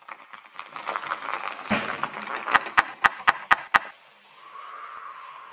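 Abstract sound-effect track: a dense crackle of quick clicks that thickens, then six sharp, evenly spaced clicks at about four a second, then a faint steady tone near the end.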